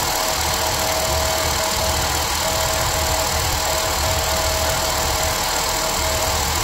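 A hydraulic press's pump motor running steadily, with a low hum and a constant whine, as it drives the ram down onto a tin can.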